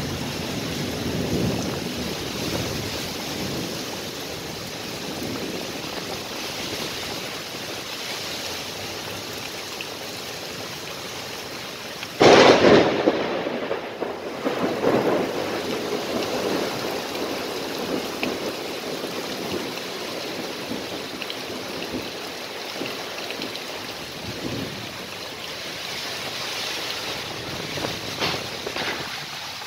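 Heavy rain pouring steadily. About twelve seconds in, a sudden loud thunderclap cracks and then rumbles away over the next few seconds.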